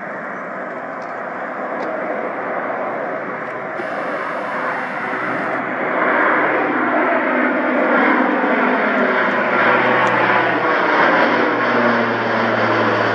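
A fixed-wing aircraft's engines growing steadily louder as the plane approaches and passes, with the engine tones sliding lower in pitch in the second half.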